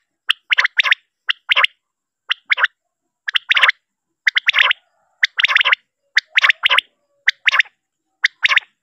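Recorded common quail calls: short phrases of two or three quick notes, repeating about once a second.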